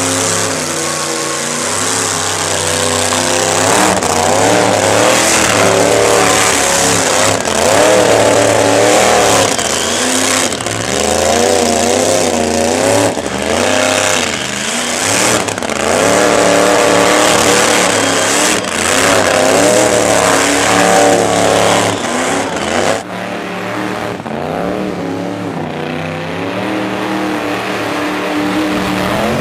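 Supercharged V8 in a classic Mini revving hard during a long burnout, its pitch repeatedly swinging up and down, over a steady hiss of spinning tyres. It eases off a little about 23 seconds in.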